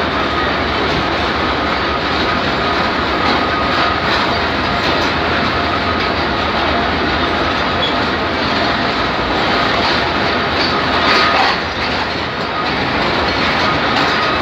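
Passenger coaches of the Jaffer Express rolling past on the adjacent track as the train departs, wheels clattering over the rail joints under a steady rumble.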